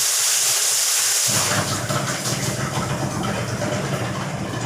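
Pressurised water hissing as it sprays out of a PVC pipe joint whose solvent cement failed to hold. About a second in, the hiss gives way to a low steady hum.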